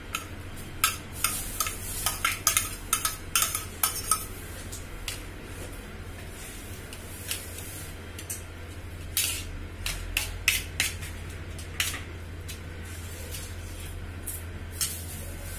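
Steel spoon clinking and scraping against a stainless steel plate and bowl as chopped roasted garlic and green chillies are scraped in and stirred through mashed tomato. Quick clinks come close together for the first four seconds, then sparser taps and scrapes.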